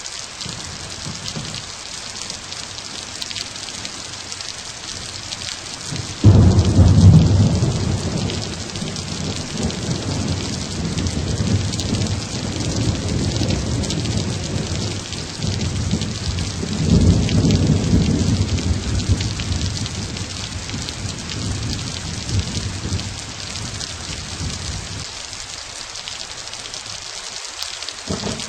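Thunderstorm: steady rain hiss with rolling thunder. A sudden loud peal comes about six seconds in and rumbles on, and another swell of rumbling comes a little past halfway.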